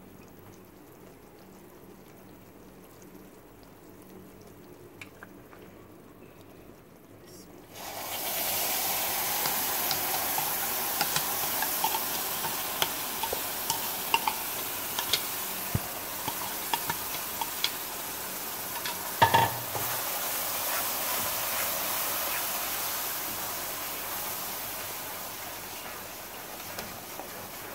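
Coconut paste poured into hot ghee and roasted semolina in a wok, setting off a sudden sizzle about eight seconds in that goes on with crackles as a wooden spatula stirs it. A sharp knock about two-thirds of the way through.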